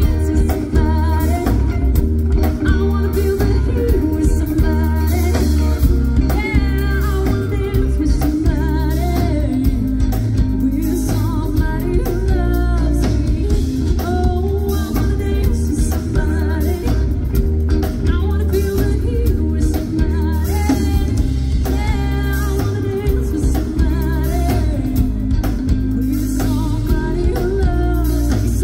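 A live yacht-rock band playing a song: electric guitar, bass guitar and drum kit, with a lead vocal over them.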